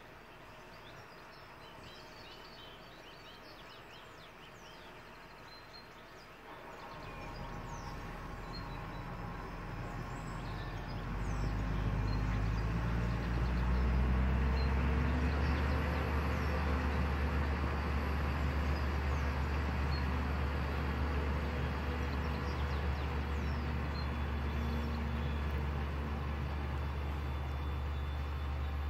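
Tractor's diesel engine pulling a slurry tanker across a field: a low drone that grows from about a quarter of the way in and then runs loud and steady as the rig comes close. Birds chirp faintly at first.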